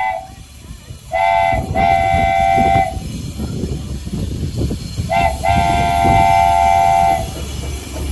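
Darjeeling Himalayan Railway narrow-gauge steam locomotive sounding its whistle twice, each time a short toot followed by a longer steady blast, about a second in and again about five seconds in, over a rough rumble.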